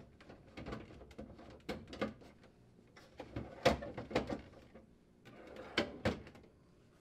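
Plastic refrigerator crisper drawer sliding on its metal slide rails as it is pushed in and pulled out, with a string of light plastic clicks and knocks, freshly refitted on a new support bracket.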